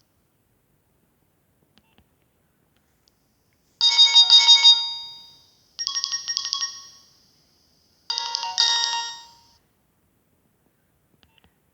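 Nokia 6070 mobile phone ringtone playing from its speaker: about four seconds in come three short bursts of rapid, bright electronic notes, each fading away, roughly two seconds apart.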